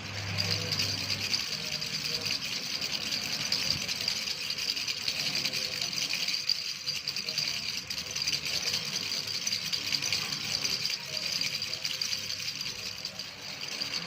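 A baby's handheld rattle (giligilipu) shaken without a break, giving a dense, fast rattling.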